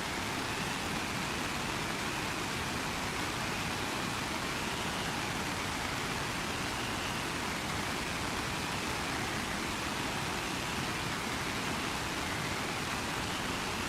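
Steady heavy rain, a dense even hiss with no separate drops standing out and a faint high band that slowly wavers.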